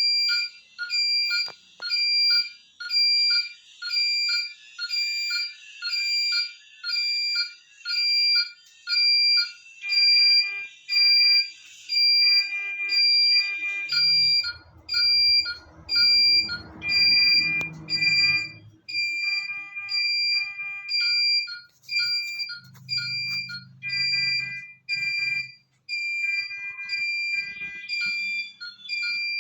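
Electronic alarm beeping steadily, a high single-pitched beep repeating about one and a half times a second. A low, rough sound runs beneath it for a few seconds around the middle.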